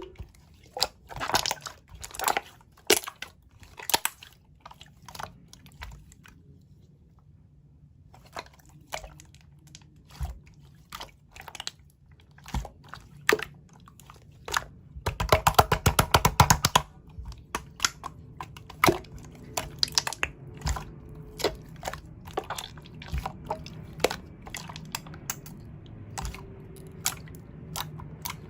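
Slime being squished and pressed by hand, giving a string of separate sticky clicks and pops, with a quick dense run of crackling pops about halfway through.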